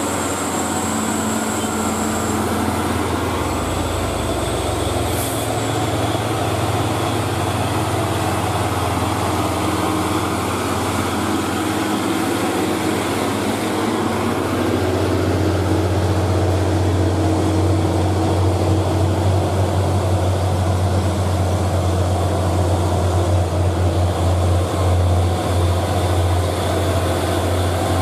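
Diesel engines of stone-laden Hino 500 dump trucks labouring up a steep grade: a steady low engine drone as one truck passes, growing louder from about halfway as the next truck approaches. A brief high hiss about five seconds in.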